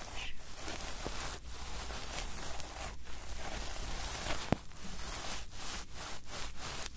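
Close-up rustling and scratching noise, steady with brief breaks, and a few small clicks.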